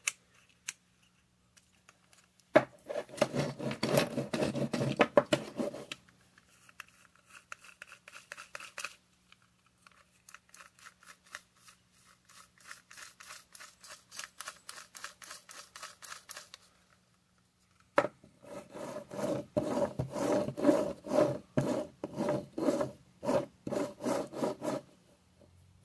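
Small screwdriver turning screws into the plastic housing of a Lego train motor: fast, rhythmic rasping strokes in two louder runs, with softer ticking between them.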